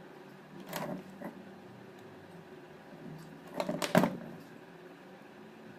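Pliers and metal parts clinking and scraping on an alternator rotor as its slip ring is worked on: a short clatter about a second in, then a louder burst of clicks and knocks near the end. A steady hum runs underneath.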